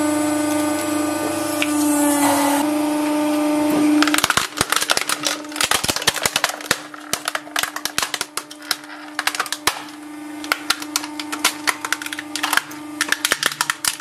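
Hydraulic press pump humming steadily. About four seconds in, a plastic portable radio's casing and speakers start to crack and snap in rapid, irregular bursts of sharp clicks as the press crushes it, with the hum still running underneath.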